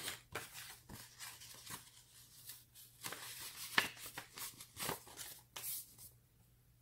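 Paper cash envelope and banknotes rustling and crinkling in short, irregular bursts as they are handled. The sound stops about six seconds in.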